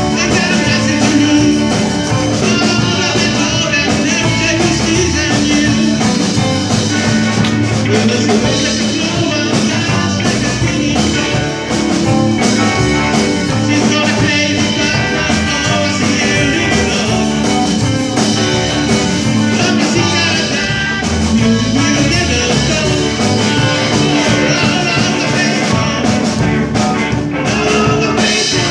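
Live rock and roll band playing: electric guitars and drum kit with keyboard, heard from the audience floor.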